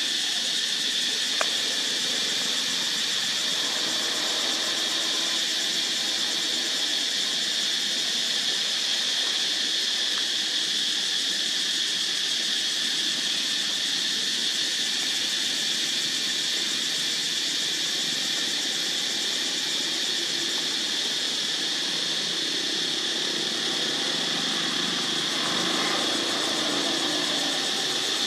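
Insects droning in a steady, high-pitched chorus without a break, with a single brief click about a second and a half in.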